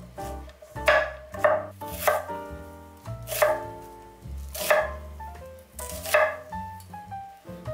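Chef's knife cutting Korean zucchini and then a quarter onion on a wooden cutting board: about six separate cuts, each ending in a sharp knock of the blade on the board, roughly one a second.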